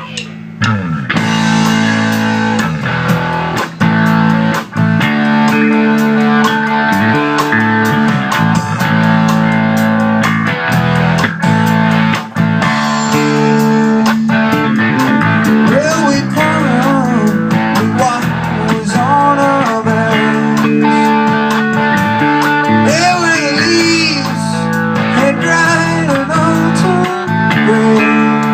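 Instrumental intro of a blues-rock song: electric guitar over bass and a steady drum beat, with the lead guitar bending notes around the middle.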